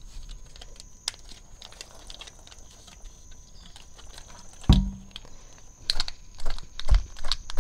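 Light plastic clicks and taps from a chainsaw air-filter half and a plastic gasoline bottle being handled while the filter is rinsed in clean gasoline, with a heavier knock a little under five seconds in and another about seven seconds in.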